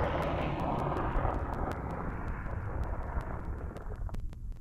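Yamaha snowmobile running across lake ice: a low rumble of engine and track under a rushing hiss of wind, with a fast, even ticking. The hiss fades out about four seconds in as the sled slows, leaving the low rumble.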